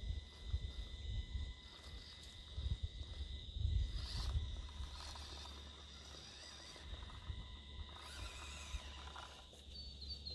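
Axial SCX24 micro RC crawler's small electric motor and gears running in short bursts as it is eased up a rock ledge, with wind rumbling on the microphone.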